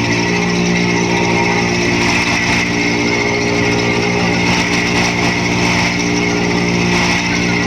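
Wood chipper running steadily under power, its engine note holding constant.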